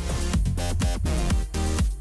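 Electronic background music with a steady kick-drum beat.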